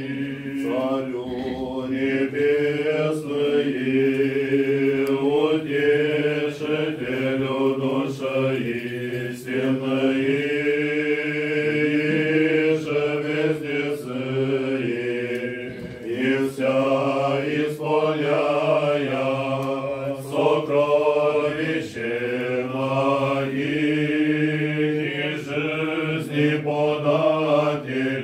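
Church chant: voices singing a slow melody in long phrases over a steady held low note.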